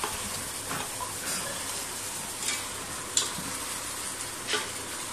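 Chicken pieces in ginger-garlic paste sizzling in a stainless steel pot as they start to release their own juices, stirred with a wooden spatula that scrapes against the pot a few times.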